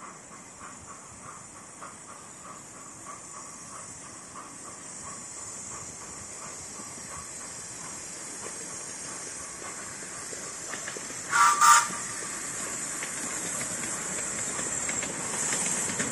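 Miniature steam locomotives drawing nearer, with a steady hiss of steam that grows louder. About eleven seconds in, a steam whistle gives two short, loud blasts.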